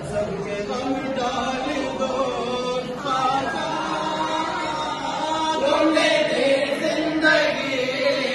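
A group of men chanting a devotional salaam together, growing a little louder near the end.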